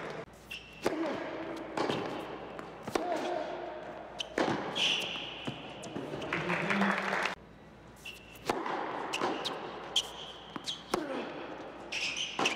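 Tennis ball bounced on an indoor hard court before a serve, a series of sharp short thuds echoing in a large hall, with voices in the background.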